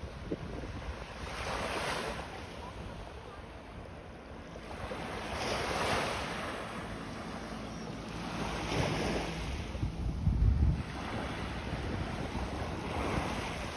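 Sea surf breaking and washing up the beach in swells every three or four seconds, with wind buffeting the microphone, hardest about ten seconds in.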